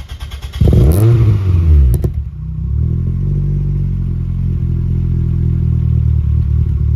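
A car engine cranking briefly, catching and revving up and down, then running steadily.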